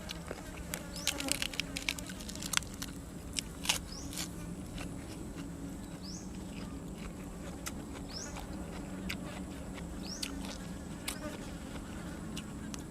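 Crisp crunching of fresh raw vegetables and grilled cuttlefish being chewed, several sharp crunches in the first four seconds, over a steady low buzz. Three short rising chirps come in the middle.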